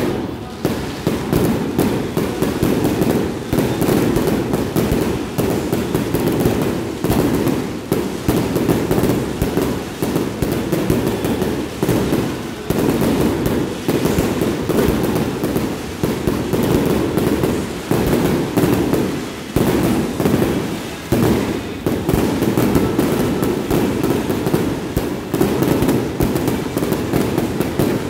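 Fireworks display: a ground-launched multi-shot barrage firing a rapid, unbroken stream of bangs and crackle, many shots a second.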